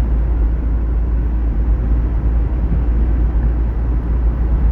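Steady low rumble of a car moving along a road, heard from inside: road, engine and wind noise.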